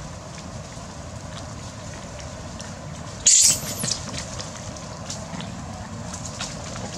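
A macaque gives a shrill scream about halfway through, lasting about half a second, followed by a shorter, weaker cry, as monkeys in the troop chase and lunge at one another.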